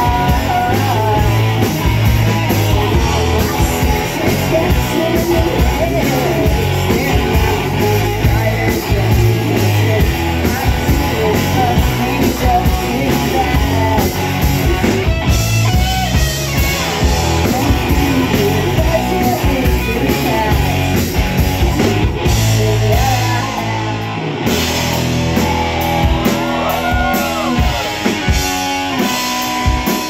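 Indie rock band playing live: electric guitars, bass and drum kit, with a singer's voice over them.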